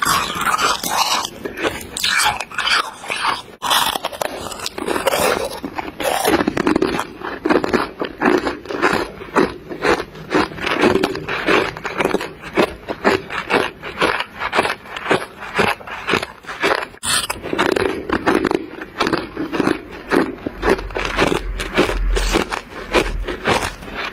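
Close-up chewing of big chunks of refrozen freezer frost: a steady run of sharp, icy crunches, several each second.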